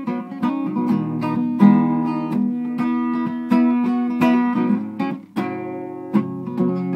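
Acoustic guitar strummed in a steady chord pattern, with no voice over it.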